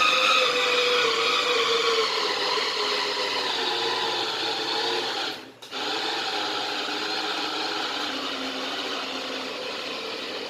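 Electric food processor motor running steadily as it grinds a thick kofta mixture of minced meat, rice and herbs. Its whine sinks slowly in pitch as it works under the load. It stops for a moment about halfway and runs again.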